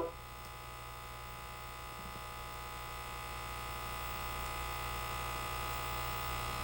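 Steady electrical mains hum and buzz from a sound system left on with nothing playing, slowly growing a little louder.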